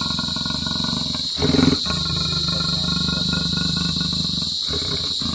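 A leopard trapped in a cage, growling as a steady low rumble, with one louder outburst about a second and a half in.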